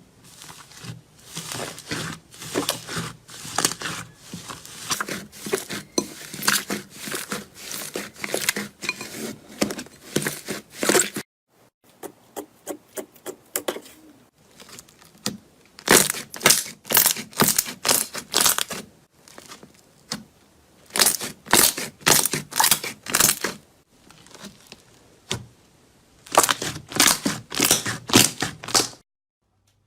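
Crisp crackling and crunching of a crunchy material being worked, as in crunchy-slime or soap ASMR. A dense run of fine crackles stops abruptly about eleven seconds in. After a few sparse clicks, the crunching returns in three separate bursts that are louder and sharper.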